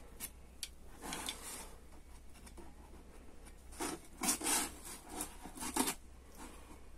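Utility knife blade scraping and cutting into a cardboard shipping box, with rubbing as the box is handled. It comes as a few short rasping strokes with small clicks, the loudest about four seconds in and again near six seconds.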